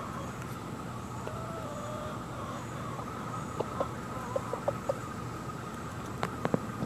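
Chickens clucking with short, soft calls as they feed, then a few sharp taps near the end as beaks peck close to the microphone. A steady insect chorus runs underneath.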